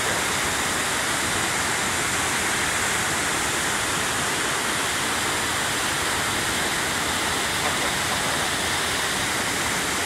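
Tall waterfall pouring down a rock face: a steady rush of falling water.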